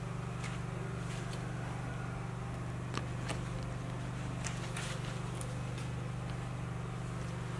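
Steady low electrical or mechanical hum, with a few faint soft clicks from the monkeys being handled on the bedding.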